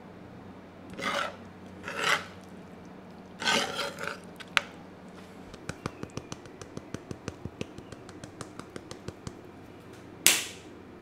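Plating sounds: a few soft scraping swishes as sauce is ladled onto a plate, then a run of quick small clicks, about five a second, as a dried-herb garnish goes over the dish, ending in one sharp rasp.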